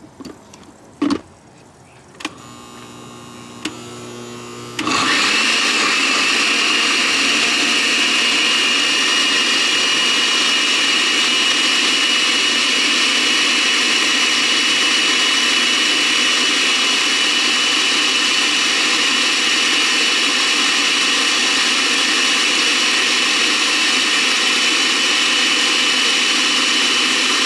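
Countertop blender switching on suddenly about five seconds in and then running steadily at one speed with a high whine, puréeing roasted tomatoes, chiles and garlic into salsa. A single knock sounds about a second in as the jar is handled.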